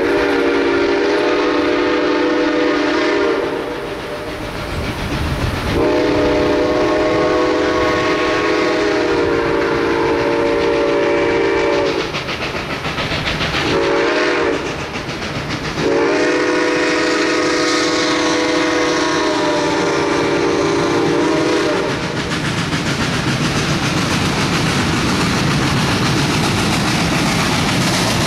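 Steam locomotive 734, a 2-8-0, sounding its chime whistle in the grade-crossing signal: two long blasts, a short one, then a long one. The train's running noise follows as it approaches.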